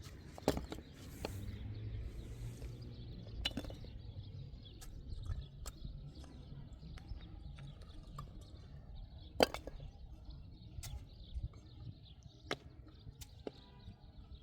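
Irregular sharp taps and knocks, about a dozen, spread over a low rumble, with one louder knock about nine seconds in.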